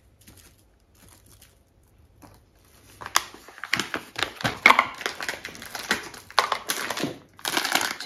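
A flour bag crinkling and crackling as it is handled and opened for weighing: faint rustling at first, then from about three seconds in a dense run of sharp crinkles.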